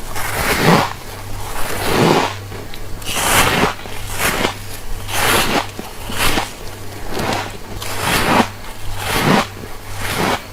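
Refrozen freezer frost being bitten and crunched close to the microphone, about one crisp crunch a second. A steady low hum runs underneath.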